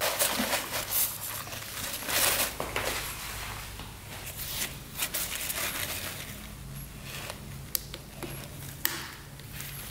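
Hands rustling and handling parts and tools at the stripped-down two-stroke engine of a 1986 Honda CR125, with a few sharp small clicks in the second half.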